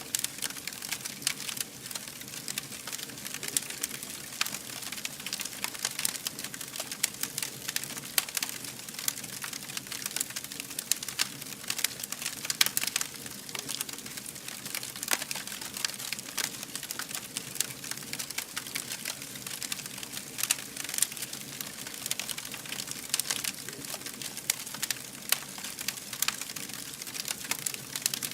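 Wood fire burning, with a steady hiss and many irregular sharp crackles and pops.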